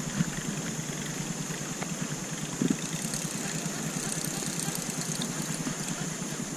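Steady outdoor background noise with a constant high-pitched hum running through it, and one soft knock about two and a half seconds in.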